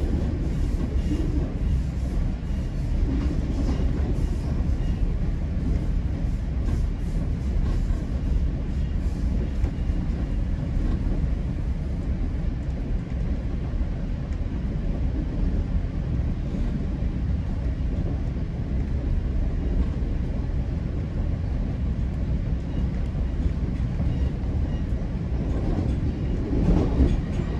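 GO Transit passenger train running at speed, heard from inside the coach: a steady low rumble of wheels on the rails, with quick clicking over the track through roughly the first ten seconds. A brief louder sound comes near the end.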